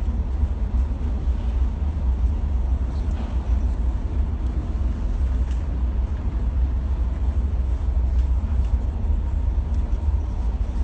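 Steady low rumble of a vehicle in motion, with an even noise over it and no separate events.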